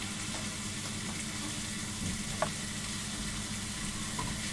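Pieces of marinated meat sizzling steadily on a flat-top griddle, with a single light click about two and a half seconds in.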